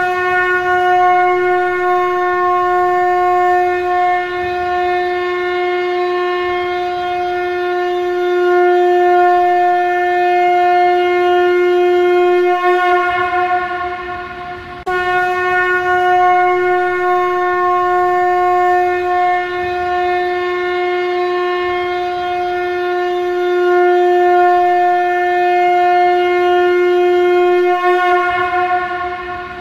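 Shankha (conch shell trumpet) blown in long, steady blasts on one unwavering pitch, rich in overtones. Two blasts of about fourteen seconds each, each tailing off before the next starts abruptly midway through.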